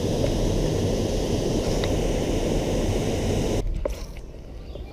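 Steady rumbling rush of outdoor noise, heaviest in the low end. It cuts off abruptly about three and a half seconds in, leaving quieter ambience with a few faint clicks.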